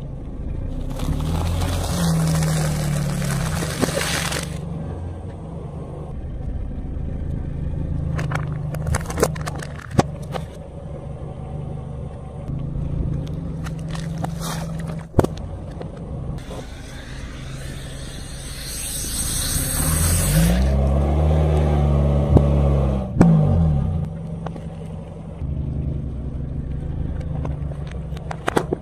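A car's engine running low while its tyre rolls over objects on asphalt and crushes them. There are two long stretches of crackling and crunching, and several sharp snaps and cracks in between.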